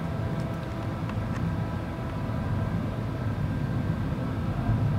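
Low, steady rumble and hum of an underground metro station by the track tunnel, growing slightly louder toward the end, with a couple of faint ticks in the first second or so.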